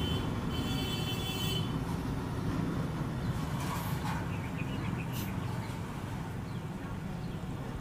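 Steady low background rumble, with faint high steady tones during the first second and a half.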